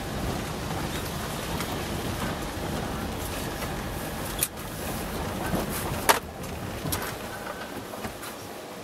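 Volkswagen Transporter van driving slowly up a rough farm track, heard from inside the cab: steady engine and tyre rumble with a couple of sharp knocks or rattles. The rumble eases near the end as the van slows to a stop.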